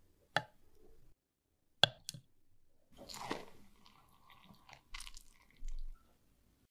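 Quiet kitchen handling sounds: a few sharp clicks as a metal spoon scoops into chocolate mousse on a plate, then a short splashy stretch about three seconds in as hot water is poured onto cocoa powder in a glass bowl, followed by small clinks and taps.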